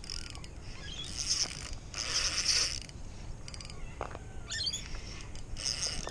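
Spinning reel cranked in short spells, its gears and rotor whirring as line is wound in on a hooked fish. A brief squeaky chirp comes about four and a half seconds in.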